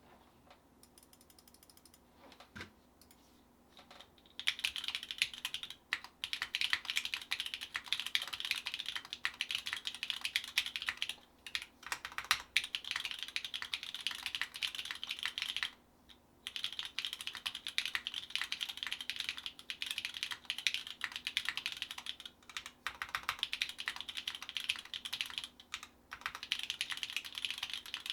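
Fast typing on a Driftmechanics Forever 65 mechanical keyboard with unlubed Gateron Deepping 4mm switches on a POM plate and GMK keycaps. A couple of isolated key presses come first, then a rapid, continuous stream of key clacks starts about four seconds in, with a few brief pauses.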